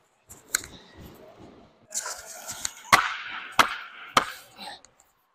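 Goalie's hockey stick slammed repeatedly against the ice and net in frustration: a string of sharp cracks, the three loudest about half a second apart around three to four seconds in.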